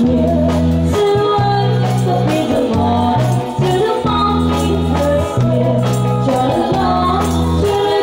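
Live band music: several women singing together over bass, drums and a shaken tambourine.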